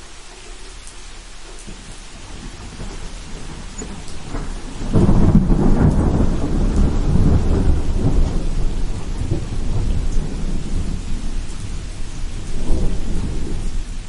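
Steady rain with thunder. A loud roll of thunder breaks about five seconds in and rumbles on for several seconds, and it swells again near the end.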